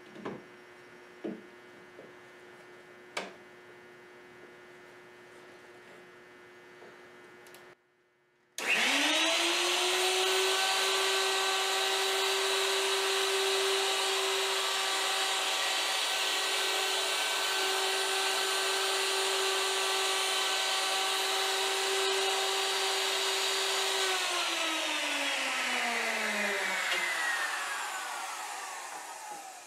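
Electric wood router switched on about a third of the way in, its whine rising quickly to full speed, running steadily for about fifteen seconds on a final cleanup pass along a slot in a chair leg, then switched off and winding down with a falling whine. Before it starts, a few light clicks over a low steady hum.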